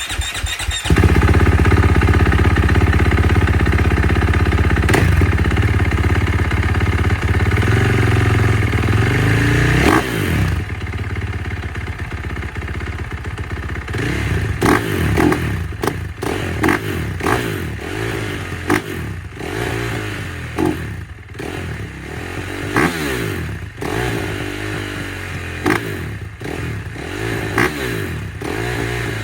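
KTM 450SMR supermoto's single-cylinder four-stroke engine, heard through its exhaust, running at a steady idle, then from about halfway blipped again and again in short revs about once a second.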